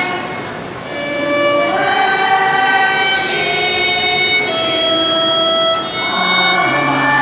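Children's choir singing a slow hymn with a violin accompanying, in long held notes that step from pitch to pitch; the sound dips briefly about half a second in, then swells again.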